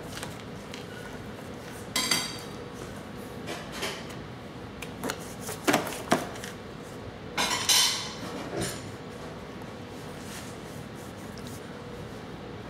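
A baby's hands slapping and patting a plastic high-chair tray: a scattering of knocks, the loudest about two seconds in and around seven and a half seconds in.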